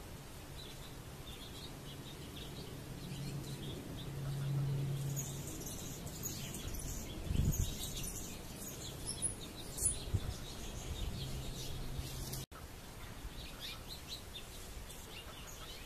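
Small birds chirping on and off in the background over a low steady hum that swells for a couple of seconds, with a couple of low thuds midway.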